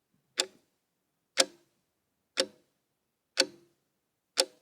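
Clock ticking: five sharp ticks exactly a second apart, each with a brief ring, and silence between them.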